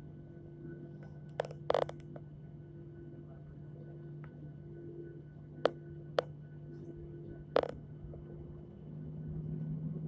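Steady low hum inside a Boeing airliner's cabin, carrying a few steady tones, with several sharp clicks and knocks. Near the end a low rumble swells.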